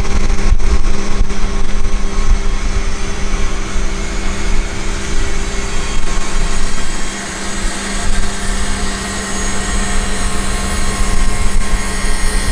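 Aircraft ramp noise: a steady machine drone with a constant low hum over a heavy, fluctuating rumble, dipping briefly about seven seconds in.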